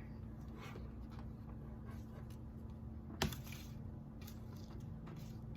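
Faint rustling and light handling sounds as a ribbon bow is fitted to the top of a cutting board, with one sharp tap about three seconds in, over a low steady hum.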